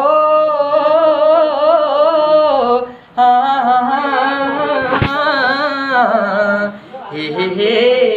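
A man singing a Kumaoni Pahari folk song, holding long drawn-out notes with a wavering pitch in three phrases, with short breaths about three and seven seconds in. A single sharp click sounds about five seconds in.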